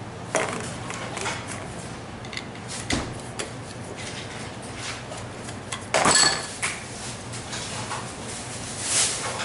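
Metal tools clicking and knocking against a scooter's disassembled brake caliper as the brake pad retaining pin is worked out. Scattered clinks; the loudest about six seconds in, with a brief metallic ring.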